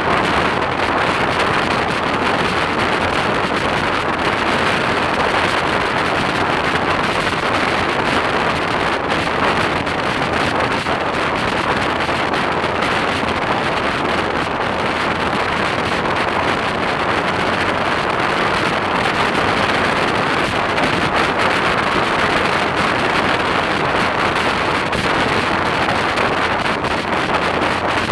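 Steady wind rush over the camera microphone of a motorcycle riding at road speed, with the bike's running noise blended into it.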